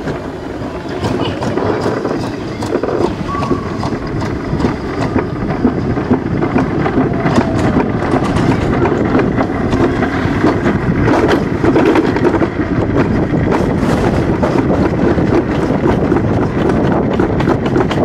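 Summer toboggan sled running down a stainless steel trough: a steady rumble with scattered rattles and clicks, getting a little louder partway through, mixed with wind buffeting the microphone.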